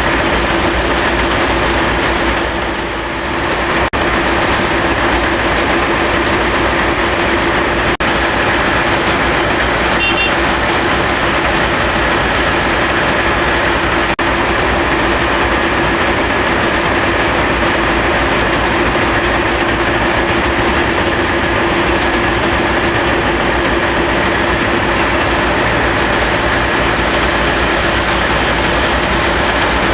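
Bauxite-ore processing machinery running steadily: a loud, continuous mechanical din with a steady hum through it, easing briefly about three seconds in.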